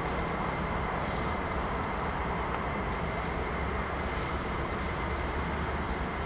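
Level-crossing electronic warning signal sounding with a steady high tone over a steady low rumble.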